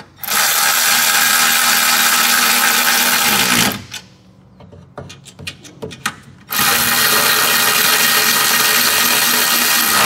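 Milwaukee cordless ratchet running the new standoff studs of a fuel pump driver module kit into the threaded holes of the truck's frame cross member. It makes two steady runs of about three and a half seconds, one per stud, with a few light clicks between them, and the first run slows just before it stops.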